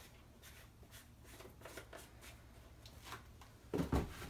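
Faint light scrapes and ticks of a spoon measuring powdered seasoning into a Thermomix bowl, then two louder knocks near the end as a kitchen wall cupboard is opened and reached into.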